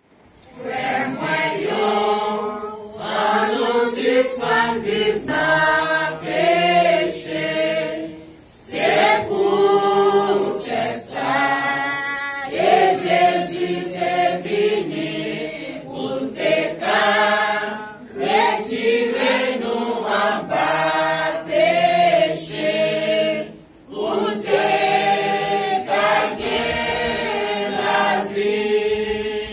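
Congregation of mixed men's and women's voices singing a hymn together, unaccompanied, in long phrases with brief breaks between them.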